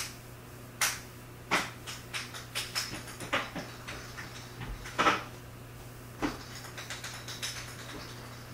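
Irregular slaps and taps of hands striking each other and the body while signing, at first several a second, then sparser after about six seconds, over a steady low hum.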